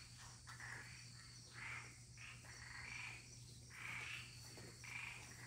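Faint night chorus of frogs and insects: short calls repeating roughly once or twice a second, over a steady high insect trill and a low hum.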